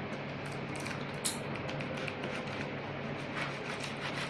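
Thin plastic bag crinkling and rustling in small faint bursts as hands work at its tied knot with a utility knife, with one sharper click about a second in.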